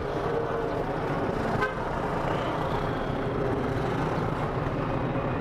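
Honda CB-1 400 motorcycle's inline-four engine running at low speed amid road traffic, with a vehicle horn tooting.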